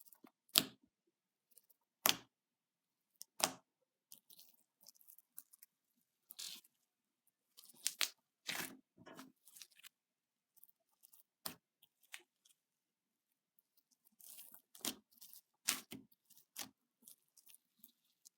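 Slime being pressed and pulled, giving sharp crackling snaps at irregular intervals: three single loud snaps in the first few seconds, then denser clusters of crackles.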